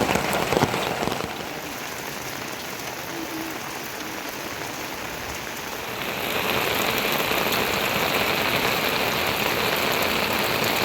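Heavy rain falling, with sharp drop impacts on a surface in the first second. It settles to a quieter steady hiss, then gets suddenly louder again about six seconds in.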